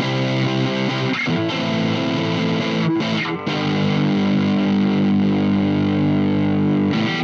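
Electric guitar played through a Boss OS-2 overdrive/distortion pedal into a small Blackstar HT-5 valve amp, strumming distorted chords. A few quick chord changes come first, then one chord rings out from about halfway and is cut off abruptly at the end.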